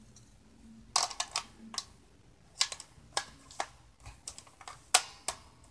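Irregular sharp plastic clicks and taps as an attachment is taken off and fitted onto a hot-air blow-dryer straightener.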